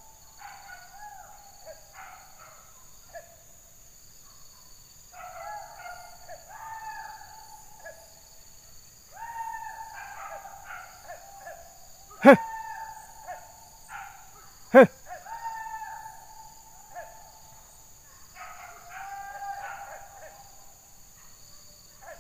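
Hunting dogs baying in repeated bouts on the chase of a wild boar. Two sharp knocks come about two and a half seconds apart near the middle, over a faint steady high buzz of insects.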